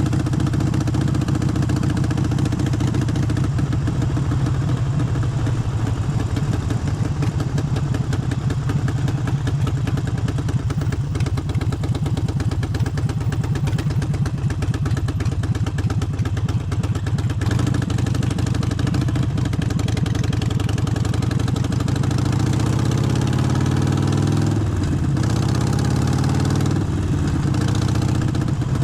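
Harley-Davidson Forty-Eight's air-cooled 1200 cc V-twin running steadily. In the last third it revs up, with the pitch climbing and then dropping sharply twice, about 25 and 27 seconds in, as it shifts up through the gears.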